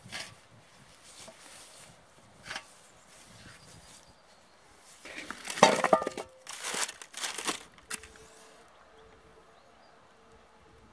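Split firewood logs being stacked into the steel bowl of a grill made from a combine harvester wheel: a run of wooden knocks and clatters against the metal, about midway through.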